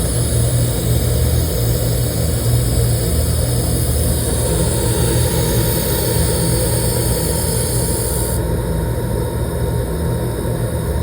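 Steady low machine hum with a hiss over it; the highest part of the hiss drops away about eight seconds in.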